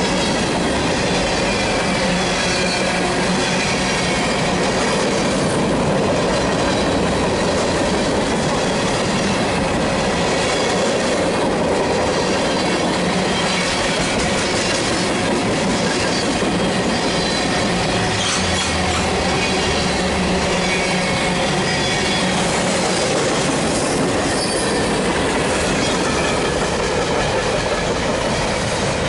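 Freight cars of a BNSF mixed freight train rolling past close by: a steady rumble and clatter of steel wheels on the rails, with a thin, high wheel squeal running through it.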